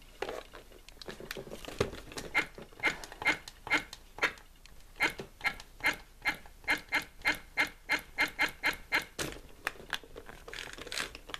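Mouth motor of a Buddy Big League animatronic talking doll buzzing in short, rapid bursts, about three a second for several seconds, as the mouth twitches on its own. The owner blames the glitch on a broken-off capacitor that should sit across the mouth motor's leads.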